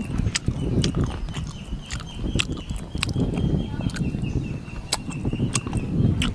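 Close-up mouth sounds of eating roast pork with the fingers: chewing with sharp, irregular lip smacks and clicks. A steady high tone runs behind.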